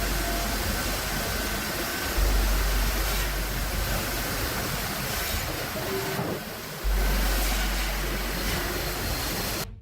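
Steady, noisy running of large sawmill machinery processing logs, with deep low booms that start abruptly about 2 and 7 seconds in.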